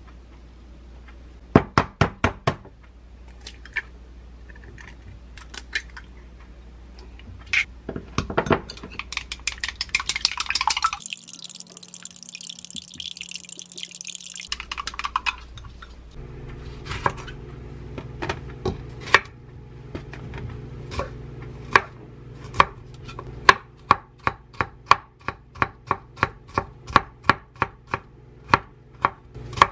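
Chef's knife chopping bell pepper on a wooden cutting board: sharp knife strikes, scattered at first and coming about two a second in the last few seconds.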